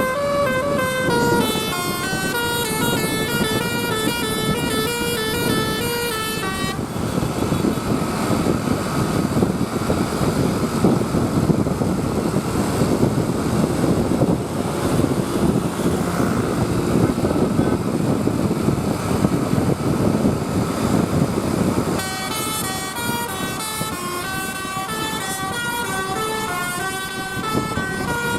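Telolet basuri bus horn playing a quick melody of short stepped notes, then breaking off for a long stretch of loud noise without a tune, and starting another melody about two-thirds of the way in.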